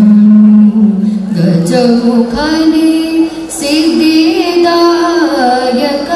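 Music with a woman singing, her long held notes bending and wavering in pitch.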